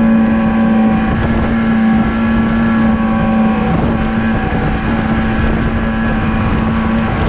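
Outboard motor running at a steady, unchanging speed as the boat travels, with wind noise on the microphone.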